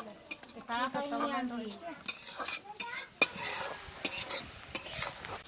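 Metal spatula stirring sliced onions in a metal kadai: scraping and clinking against the pan over a sizzle of frying, with the loudest clank about three seconds in. A voice speaks briefly around the first second.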